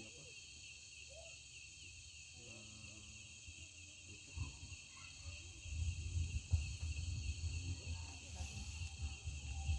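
A steady chorus of crickets and other insects chirping, with low rumbling and scattered knocks coming up in the second half.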